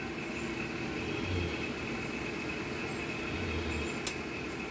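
Steady background hum, with one sharp click about four seconds in.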